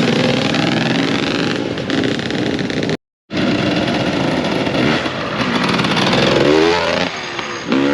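Dirt bike engines running, with a brief total dropout about three seconds in where the footage cuts. Near the end a bike's engine revs climb sharply twice.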